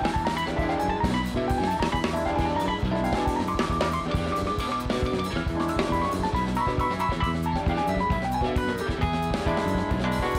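Live rock-funk band playing an instrumental passage: drum kit, electric bass and electric guitar, with a keyboard solo of short rising runs repeated over the beat.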